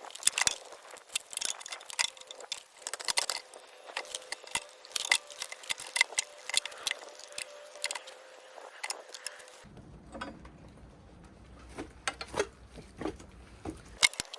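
Irregular clicking and tapping of hand tools and small metal parts being handled during restoration work. A low hum comes in suddenly about ten seconds in.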